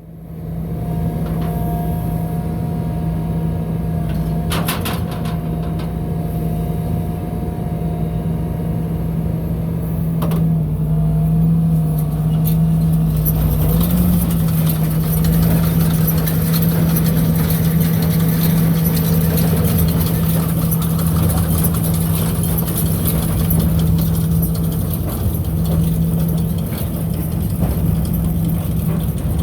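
Engine running steadily at a constant speed, which is most likely the tractor powering the baler. A couple of clicks come about 4 and 10 seconds in. From about 13 seconds a hissing, rattling machinery noise joins the engine.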